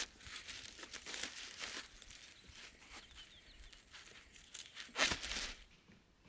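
Dry leaves and twigs rustling and crackling in an irregular stream of small crackles, with a louder rustle about five seconds in that stops suddenly.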